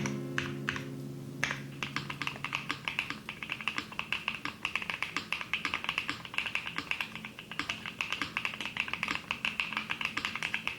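Fast, continuous typing on a Luminkey80 80% mechanical keyboard fitted with Iced Latte switches and new keycaps, a rapid run of short clacky keystrokes. Soft background music plays under the first second or so.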